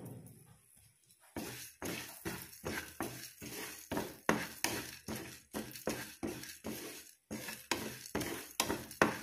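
Wooden spatula stirring and scraping whole spices (coriander seeds, fennel seeds, peppercorns) being dry-roasted in a nonstick pan, the seeds rattling across the pan at about three strokes a second, starting about a second and a half in.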